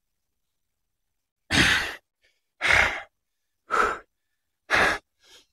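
A man breathing out hard four times, about a second apart, heavy breaths from exertion during exercise.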